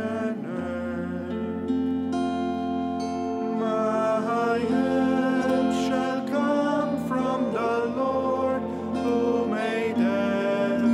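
Music led by plucked acoustic guitar, with long held melody notes over it.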